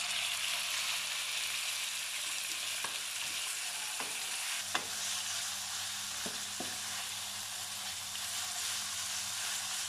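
Minced chicken sizzling steadily in hot oil in a non-stick wok as it is stirred with a wooden spatula, with a few light clicks in the middle.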